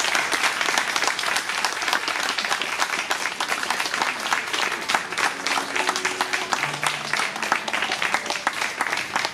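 Audience applauding: a steady, dense patter of many people's hand claps.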